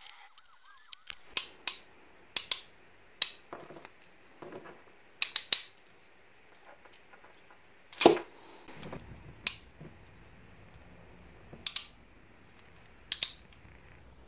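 Hand crimping tool clicking as yellow insulated terminals are crimped onto wire: about a dozen sharp clicks spread through, the loudest about eight seconds in.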